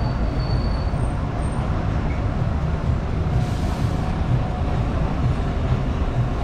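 Steady low rumble of street traffic, with a double-decker bus running close alongside. A brief hiss comes about three and a half seconds in.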